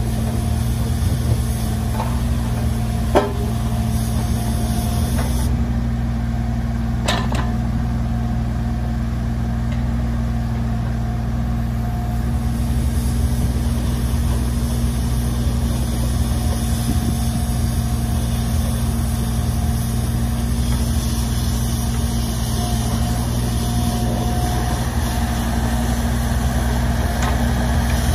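Caterpillar 301.6 mini excavator's three-cylinder diesel engine running steadily as the arm, bucket and slew are worked. A sharp knock comes about three seconds in and another about seven seconds in.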